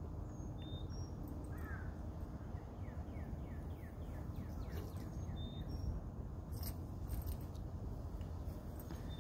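Outdoor ambience: a low steady rumble with small birds chirping, including a quick run of about ten short falling chirps a few seconds in. A few faint sharp clicks come later on.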